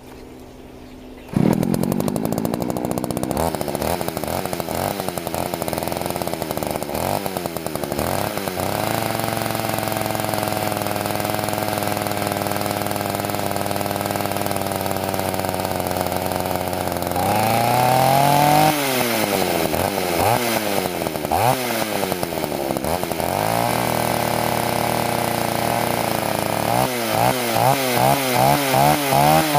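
Poulan two-stroke chainsaw engine catching about a second in and then running, its pitch rising and falling as it warms up, with a run of quick revs near the end.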